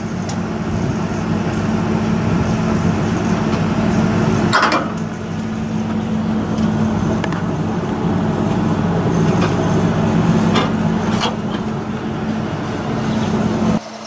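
Steady low machine hum at an LNG truck fuelling dispenser, with a few sharp metallic clicks and knocks as the fuelling hoses are handled and disconnected from the truck's tank; the hum cuts off near the end.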